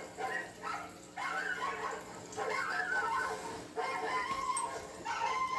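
A dog whining and yipping: a run of short, high, wavering cries with brief pauses between them.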